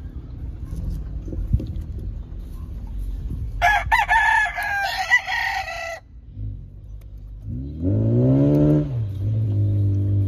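A gamecock rooster crows once, about three and a half seconds in: one long crow of about two and a half seconds. Later a lower, louder sound rises and then falls in pitch and settles into a steady low hum to the end.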